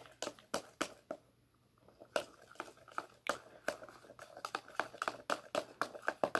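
A utensil clicking and tapping against a container as shampoo-and-salt slime is stirred: irregular sharp taps several times a second, with a pause of about a second near the start.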